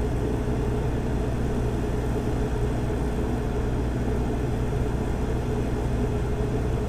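Cummins Quiet Connect 40 kW generator with a Level 2 sound kit running steadily at 100% load: an even, low engine hum with a faint steady higher drone above it.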